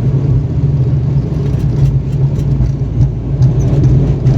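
Steady drone of an airliner's engines heard inside the passenger cabin: a strong low hum over a constant rushing noise.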